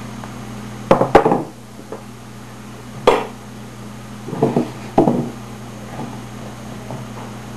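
Cups and a plastic bowl knocking and clattering against each other and a wooden tabletop in four short bursts while white powder is scooped and tipped into the bowl, over a steady low hum.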